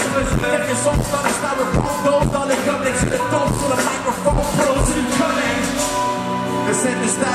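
Live band music played through a concert sound system: a steady drum beat under keyboards, with a voice singing. The drums drop out about six seconds in, leaving keyboards and voice.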